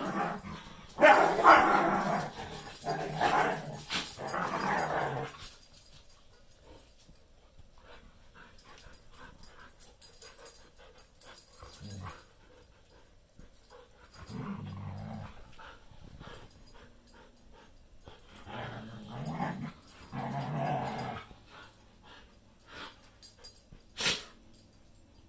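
Two dogs play-fighting mouth to mouth, growling and snarling in rough bursts. The growling is loudest for the first five seconds, then comes again more quietly in short spells, and there is one short sharp cry near the end.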